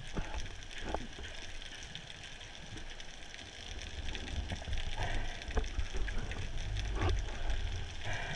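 Underwater sound picked up through a GoPro camera's waterproof housing during a dive: a low rumble of water moving past, over a steady crackle of fine clicks. A few short whooshes of water come about a second apart early on and again around five and seven seconds in, and the rumble grows heavier in the second half.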